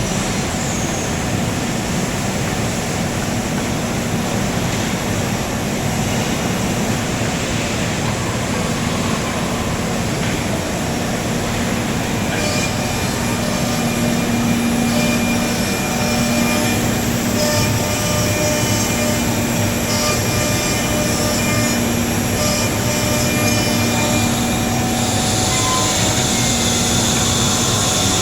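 A 10-head CNC mortising machine running, its spindle motors and cutters making a steady mechanical hum and whine. The tones shift and brighten about halfway through and again near the end, as the machining changes.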